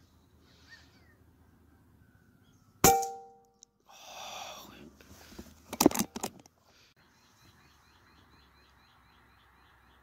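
P15 air rifle shot, a sharp crack with a metallic ring that fades over about half a second. A brief flutter follows, then a quick cluster of sharp clicks. In the second half, faint high chirps repeat about four times a second.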